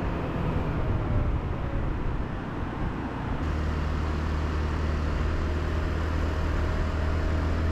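A 125 cc scooter underway, its engine running steadily under a constant rush of wind and road noise. About halfway through, a low steady engine hum comes in more strongly.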